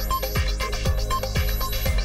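Electronic background music of a news headlines bulletin, with a steady beat of about two thumps a second and short high synth notes.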